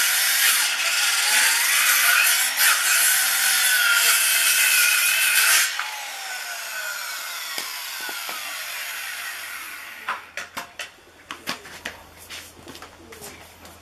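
Handheld electric circular saw cutting through a small log, then switched off about five and a half seconds in, its blade winding down with a falling whine. A few light knocks follow near the end.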